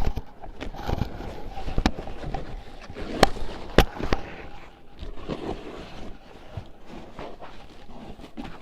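Wooden bench parts being handled: a few sharp knocks of wood on wood, with scraping and rustling in between.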